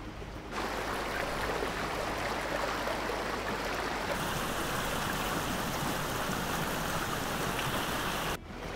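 Steady rushing of a waterfall and rapids cascading over rocks. It grows louder about half a second in, turns hissier about four seconds in, and drops away briefly near the end.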